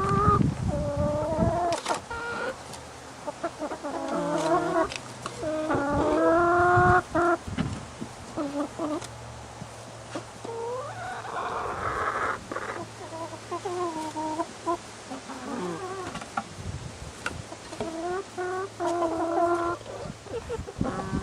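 Chickens clucking and calling again and again, with a harsher squawk about halfway through.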